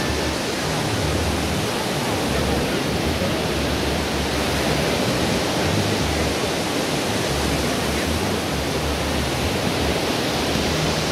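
Steady, even rush of ocean surf on a sandy beach, with wind buffeting the microphone in an uneven low rumble.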